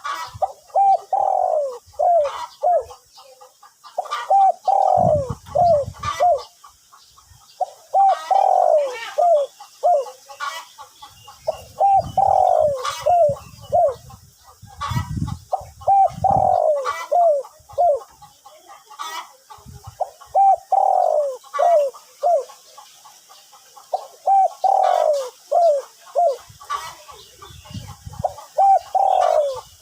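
Spotted dove cooing in a deep, big voice. It repeats a phrase of several quick coos about every four seconds, about seven times.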